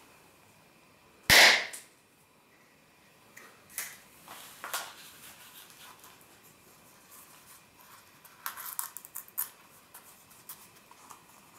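A Pyro-Art party popper going off once, a very loud, sharp bang that fades quickly, about a second in. Faint clicks and rustles follow a few times later.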